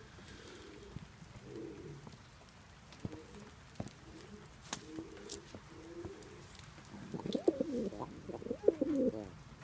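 Pigeon cooing: soft, low coos repeating every second or so, then louder, longer cooing for about two seconds near the end. A few sharp ticks fall in the middle.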